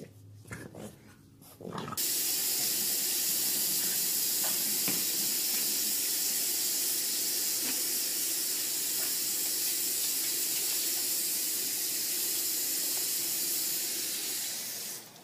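Kitchen faucet running in a steady hiss, water pouring onto a cat's fur and into the sink. It starts about two seconds in and cuts off just before the end, when the cat pushes the tap handle off.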